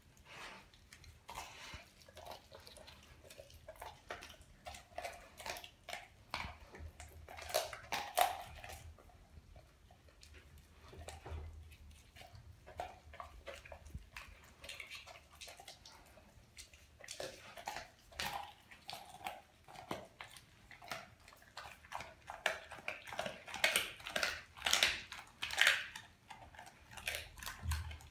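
Doberman chewing and biting into a whole raw tilapia, irregular crunches, loudest near the end.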